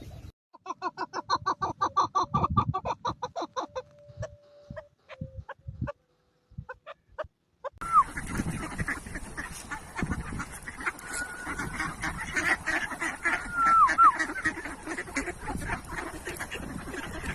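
Waterfowl calling: a fast run of honking calls for the first few seconds, then, after a short silence, a busy stretch of many overlapping calls with a few whistled notes.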